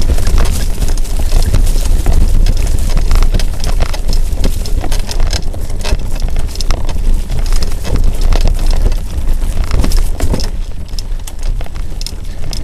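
Mountain bike ridden fast over dirt singletrack, heard from a camera on the rider or bike. A heavy rumble of wind and vibration on the microphone runs under dense clicking and rattling as the tyres run over dry leaves and roots. The rattle thins a little near the end.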